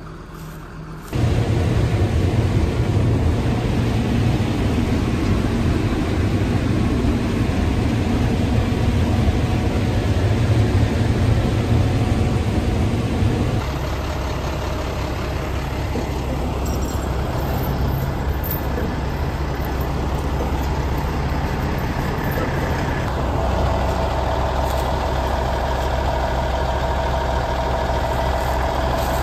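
Heavy vehicle engine running steadily. It starts suddenly about a second in, and its tone changes about 13 seconds in and again about 23 seconds in.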